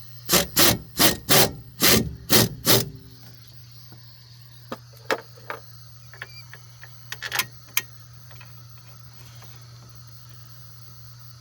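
Seven loud knocks in quick succession, then a few lighter clicks and taps, over a steady low hum.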